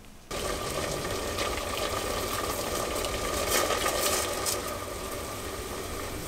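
Water boiling in a stainless steel pasta pot on a gas stove, a steady bubbling that starts suddenly about a quarter second in, with a few light clinks in the middle.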